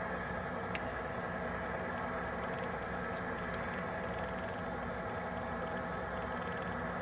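Fracking well machinery running: a steady drone of several held tones over an even rushing noise, unchanging throughout.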